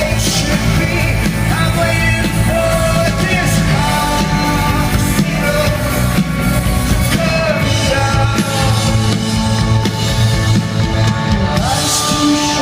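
Rock band playing live with a lead singer, the whole band loud and steady.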